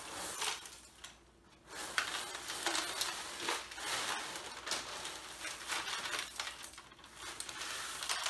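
Dry Rice Chex cereal pouring from its plastic liner bag into a disposable aluminium foil roasting pan: a rushing patter of the pieces hitting the foil and each other. There is a short lull about a second in, and then it runs on unevenly as the bag is tipped and shaken out.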